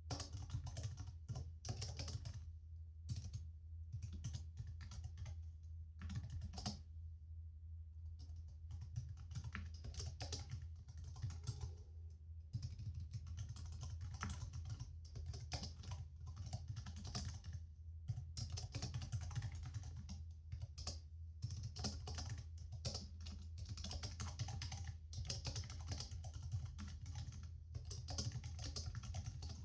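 Typing on a computer keyboard: fast runs of key clicks broken by short pauses, over a steady low hum.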